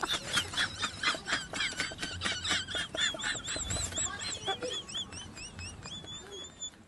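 A man laughing hard in a high-pitched cackle: quick pulses, about four or five a second, each with a rising-and-falling squeak. It slows and fades near the end.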